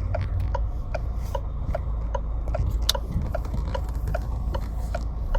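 Car engine running with a steady low hum, with a light, even ticking that repeats about two to three times a second.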